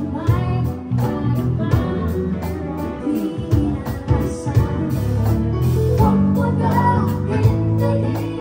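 A live band playing: a woman singing lead over electric bass, electric guitar and a drum kit keeping a steady beat.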